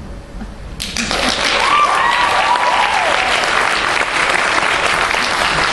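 Audience applause breaks out suddenly about a second in and carries on steadily, with a few cheers over it early in the clapping.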